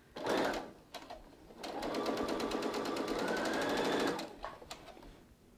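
Electric home sewing machine stitching the first stitches of a new seam, with the thread tails held back to keep the thread from nesting. A brief noise comes first, then a rapid, even run of needle strokes with a motor whine that rises slightly, lasting about two and a half seconds before it stops.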